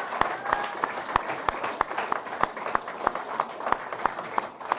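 Audience applauding, a scattering of individual hand claps over a wash of clapping, for a prize winner as the name is announced.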